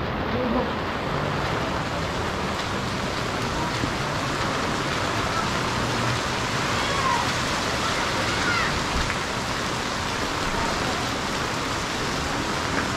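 Steady rain falling on a wet street, an even hiss of water.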